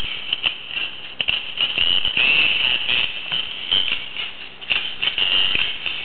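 Animated plush singing cow toy playing its music through a small built-in speaker, thin-sounding with little bass, with many quick clicks and shaker-like rattles running through it.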